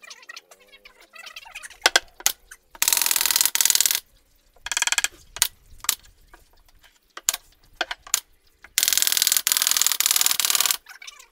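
A cordless power drill-driver running in three bursts, about a second, half a second and two seconds long, driving screws into the MDF panels of a speaker cabinet. Sharp knocks and taps from the boards being handled come between the bursts.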